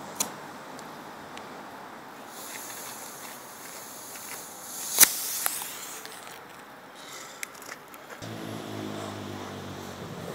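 A homemade rocket-candy (potassium nitrate and sugar) motor in a kitchen-paper tube hisses more and more loudly for a couple of seconds, then goes off with a single sharp bang about five seconds in: the motor exploded before lift-off. A low steady hum comes in near the end.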